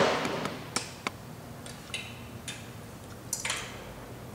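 Handling noises from work on a line striper's gun arm: a short rustle or scrape at the start, a few sharp clicks, and another brief rustle near the end.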